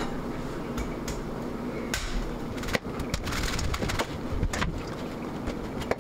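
Chef's knife cutting a head of green cabbage on a plastic cutting board: irregular crisp crunches through the leaves and knocks of the blade on the board, with the rustle of the cabbage being handled.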